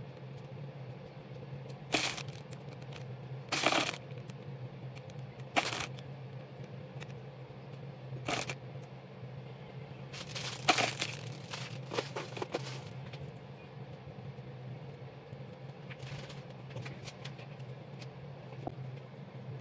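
Clear plastic bag crinkling in short, sharp bursts as decorative cake balls are taken out of it, with a cluster of rustles about halfway through. A steady low hum runs underneath.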